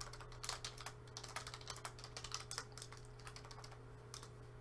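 Typing on a computer keyboard: quick runs of keystrokes that thin out after about three seconds, with a few more near the end. A faint steady hum runs underneath.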